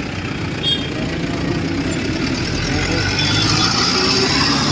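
Road traffic: motor vehicle engines running close by, heard as a steady rumbling noise.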